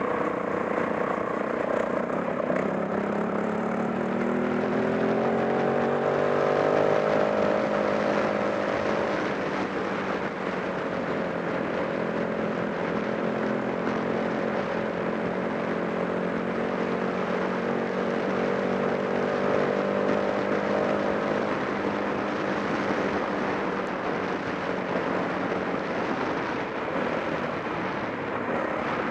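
Off-road motorcycle engine running under way, its revs climbing over the first several seconds, then settling to a steady pitch and easing off near the end, with a rushing noise throughout.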